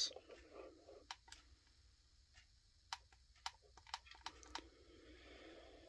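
Faint clicks of plastic buttons being pressed on a Smartro SC91 projection alarm clock: two presses about a second in, then a quicker run of about half a dozen between three and four and a half seconds in.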